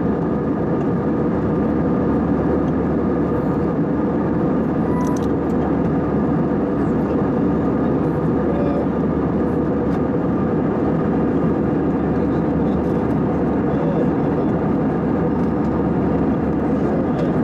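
Steady cabin drone of an Airbus A320-family airliner in flight: engine and airflow noise heard from a window seat over the wing, even and unchanging.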